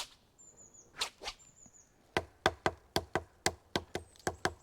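A wooden stick striking wood: a few single knocks, then from about two seconds in a quick run of about eleven sharp knocks, about four a second, like a drummed groove. Faint bird chirps come and go.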